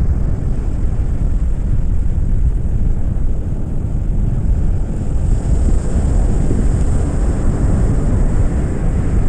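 Wind buffeting the microphone in a steady low rumble, with ocean surf breaking behind it.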